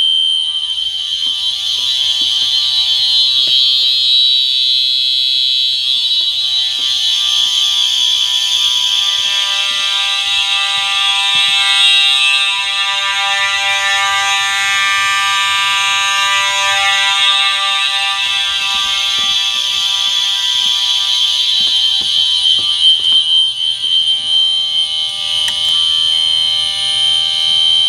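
Several fire alarm horns and horn strobes, among them a Simplex TrueAlert and a System Sensor SpectrAlert Advanced, sounding together on a loud, steady continuous signal rather than a temporal pattern, set off from a manual pull station during a system test.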